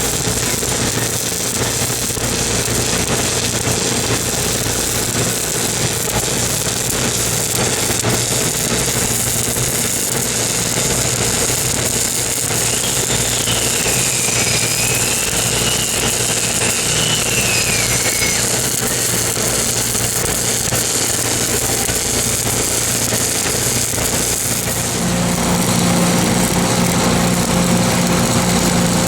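Engine-driven welder running steadily under a continuous crackling hiss, as of a stick-welding arc on a pipe flange. About 25 seconds in the engine note grows louder and fuller.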